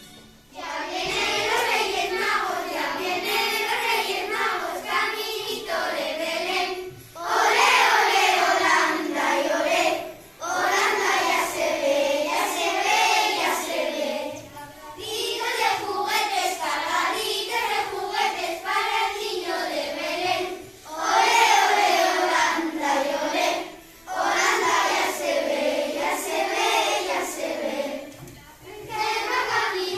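A class of young children singing a Christmas song together, in sung phrases with short breaths between them.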